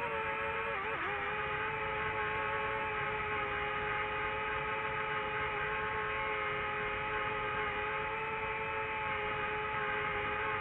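DJI FPV drone's motors and propellers whining steadily in flight over a rushing wind noise, the pitch dipping briefly about a second in as the throttle eases.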